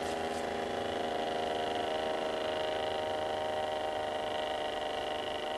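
A motor vehicle engine running steadily with an even hum.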